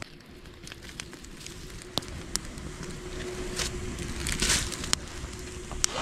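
Wood campfire crackling, with scattered sharp pops and one louder burst of crackle about four and a half seconds in, over a low steady rumble.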